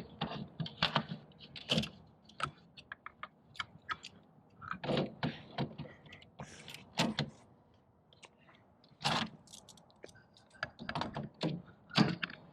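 Irregular metal clicks and knocks of hand tools working a license plate bolt loose.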